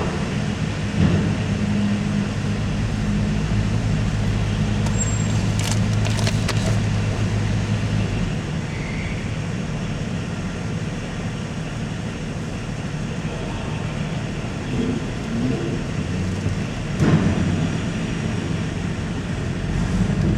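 Car driving slowly, engine and road noise making a steady low hum, with a few brief knocks and clatters.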